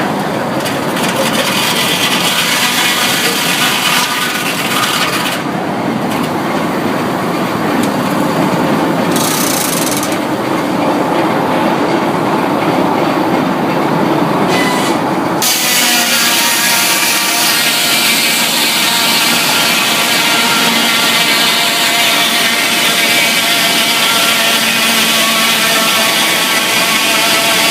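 Sawmill saw cutting through a log, loud and continuous. About halfway through the sound changes abruptly into a steadier, more tonal whine.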